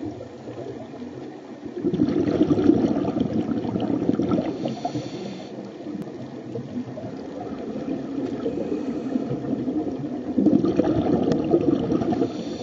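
Underwater sound of scuba breathing through a regulator: two long bursts of exhaled air bubbling, about 2 seconds in and again about 10 seconds in, each lasting around three seconds. Quieter water noise lies between them.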